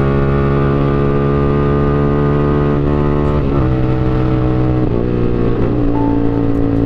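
Yamaha R15 V3's 155 cc single-cylinder engine running at steady revs while riding, with wind rush over the microphone. The engine note shifts briefly about three and a half seconds in and again about five seconds in, then settles at a new steady pitch.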